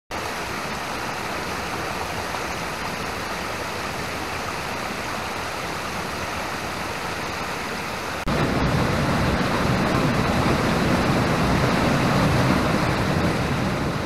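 Rushing water of a jungle stream pouring over rock cascades, a steady rush. About eight seconds in it cuts to a closer waterfall, louder and deeper.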